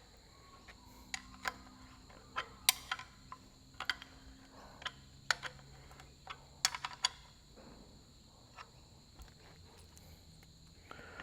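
Scattered light clicks and taps of bolts and a spanner being worked into the timing-cover housing of a Perkins diesel engine, about a dozen over the stretch, with a short cluster about two thirds of the way through. A faint steady high-pitched whine sits underneath.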